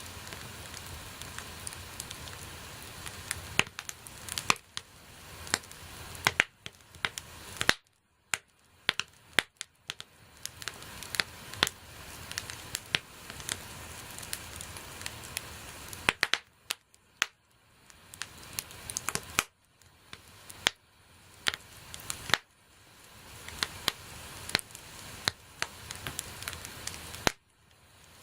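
Wood bonfire crackling: frequent sharp pops and snaps over a steady hiss. The sound drops away abruptly for a moment several times.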